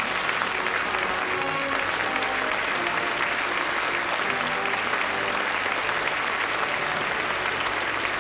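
Studio audience applauding steadily, with music playing a melody under the clapping.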